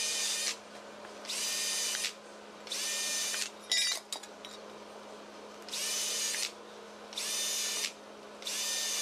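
Cordless drill drilling holes through thin, about 1/16-inch aluminum sheet backed by a wood block: six short bursts of the motor's whine, each rising quickly as the trigger is pulled. A brief clatter of small clicks falls about four seconds in.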